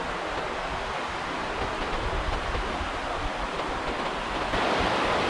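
Steady rush of flowing river water, with a low, uneven rumble under it. The rush gets a little louder about four and a half seconds in.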